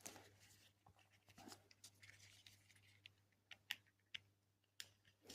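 Faint handling of small robot parts: scraping and a few sharp clicks, the loudest a little past halfway, as a leg is worked into place on the robot's body.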